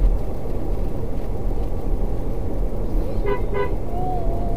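Steady road and engine rumble inside a moving car's cabin, with two short toots of a car horn about three seconds in.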